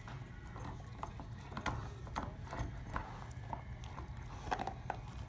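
A black Labrador mix playing with a chew toy: an irregular patter of hollow clicks and knocks, a few each second, as the toy knocks against teeth and floor.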